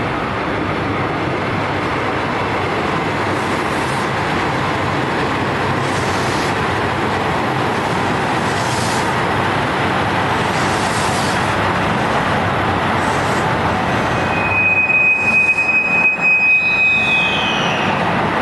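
A 2700 series diesel express train running into the station with a steady rumble of engines and wheels. Near the end a high, steady brake squeal sets in as it comes to a stop, ending in a short sliding pitch.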